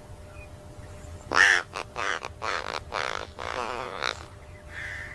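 A bird gives about five harsh, rasping calls in quick succession, starting about a second in, then a fainter call near the end.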